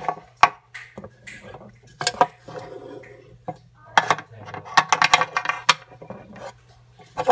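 Hard plastic toy dog figurine tapped and clicked against a tabletop as it is hopped along by hand: a few single taps, then a quick flurry of clicks about four seconds in.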